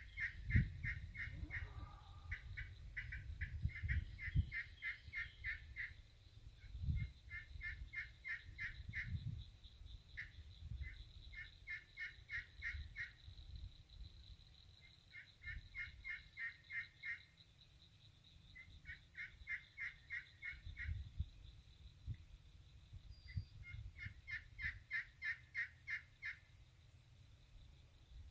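Elm turkey pot call with a crystal-over-slate surface worked with a striker, playing turkey calls in runs of short, evenly paced notes, about five or six a second, repeated with pauses between them.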